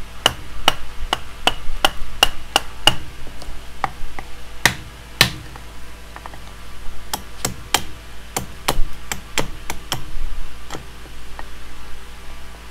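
Hammer blows on wood while fitting a replacement leg into a stump table. There is a quick run of about three strikes a second with a faint metallic ring, two heavier blows around five seconds in, then another run of quick strikes.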